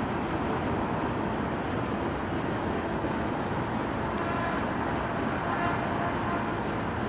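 Freight train's covered hopper cars rolling away over the track: a steady rumble of steel wheels on rail, with faint high squeals of the wheels from about four to six seconds in.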